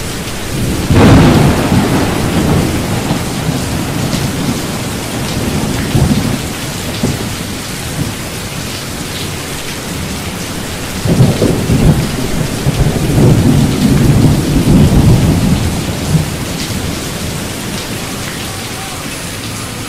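Steady rain with low rolls of thunder: one about a second in, then longer rumbles from about eleven to fifteen seconds in.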